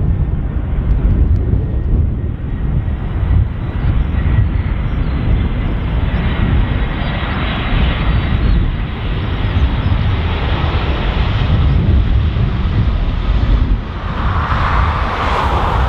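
Airbus A320-214 arriving, its CFM56 jet engines running as it passes, with a louder swell about fourteen seconds in. Heavy wind rumble on the microphone underneath.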